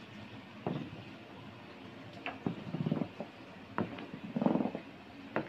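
A hand sweeping through soy milk in a large plastic tofu vat, making irregular sloshes and splashes about once a second, the largest near the middle and later on.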